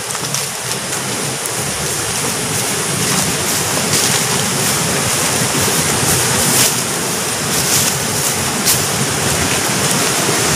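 Steady rushing of fast-flowing water from a river or waterfall ahead, getting gradually a little louder.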